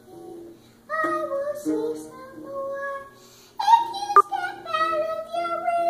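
Young boy singing a little song, the phrases starting about a second in and getting louder partway through, while strumming a small acoustic guitar.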